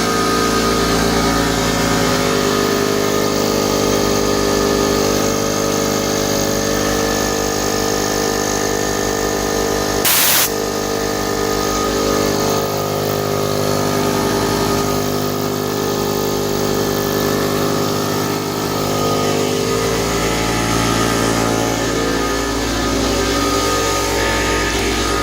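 Several air compressors running together, a steady mechanical drone. About ten seconds in there is one short, loud burst of noise.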